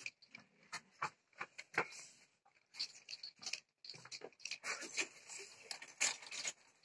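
Scattered light taps, ticks and rustles, irregularly spaced, from hands working thin strudel dough over a cloth-covered table, along with her steps around the table.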